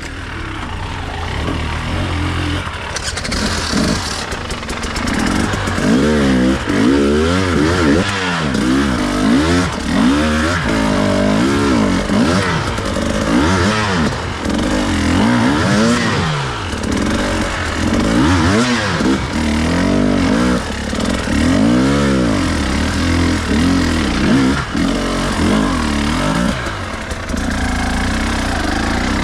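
Enduro dirt bike engine revving up and down over and over while riding off-road, a rise and fall in pitch every second or two, steadier near the start and near the end.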